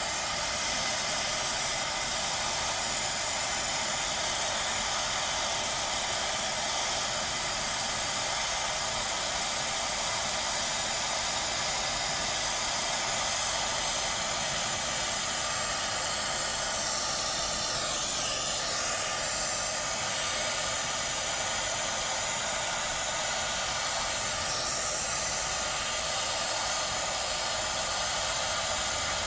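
Gas torch flame hissing steadily as it heats a copper refrigerant-line joint for soldering.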